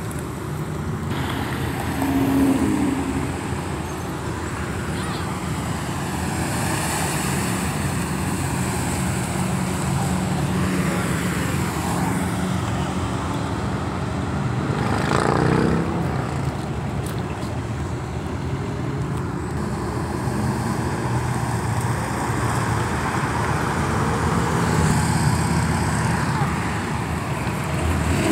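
Cars cruising past on a busy street: a steady mix of engine and tyre noise, with individual cars swelling louder as they go by, the loudest pass about halfway through.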